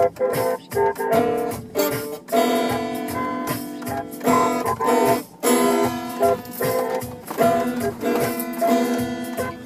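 Music with a plucked guitar playing a run of notes in quick succession.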